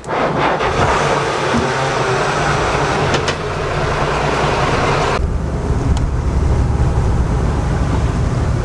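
Schooner's inboard diesel engine starting up and running steadily with a loud mechanical noise. About five seconds in, the sound changes to a deeper, duller rumble.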